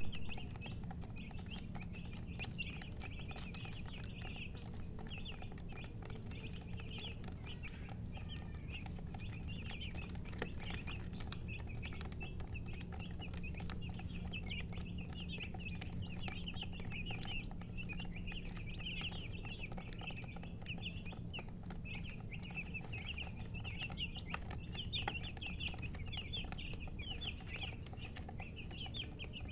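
Chickens chirping continuously in many short, high-pitched calls, one after another, over a steady low hum.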